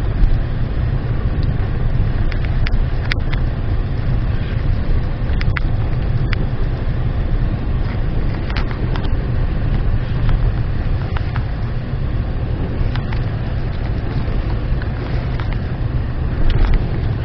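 Acura MDX SH-AWD's V6 engine and drivetrain running under load off-road, a steady low rumble, with scattered knocks and clicks from the body and suspension over rough ground.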